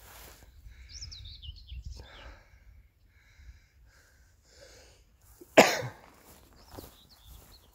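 Small birds chirping, then about five and a half seconds in a single loud cough close to the microphone.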